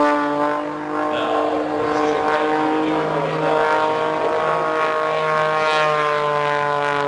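An aerobatic airplane's piston engine and propeller drone steadily, the pitch shifting slightly up and down.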